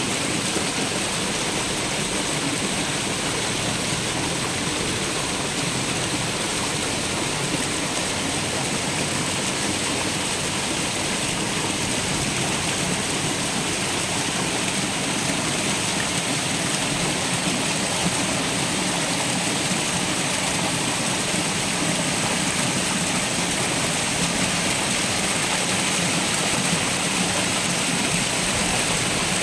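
Steady water splashing and churning as a packed school of red tilapia thrashes at the surface of a net pen in a feeding frenzy.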